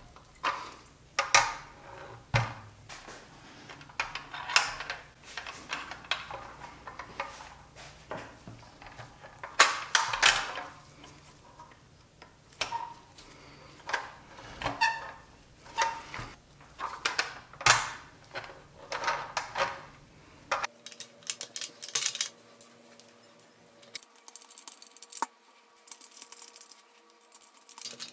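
Irregular clicks, taps and light metallic clinks of a pressed-steel Nylint Bronco toy being reassembled by gloved hands, as its wheels and axles are fitted.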